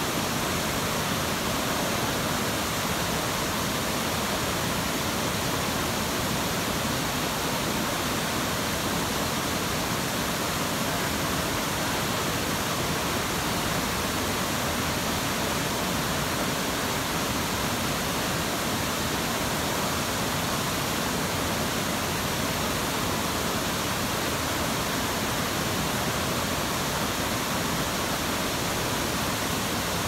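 Waterfall water pouring down in a steady, unbroken rush.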